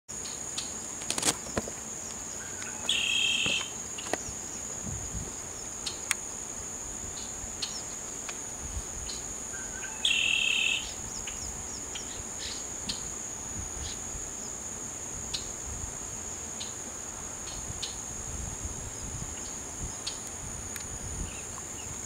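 Great-tailed grackles calling: two short, harsh, rapidly pulsing calls about three seconds in and again about ten seconds in, with scattered short chips between, over a steady high-pitched whine.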